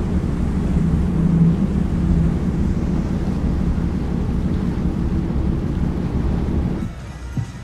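Passenger ferry's engines giving a steady low rumble and hum, with wind and sea noise on the deck. The level falls sharply about seven seconds in, leaving a quieter hum.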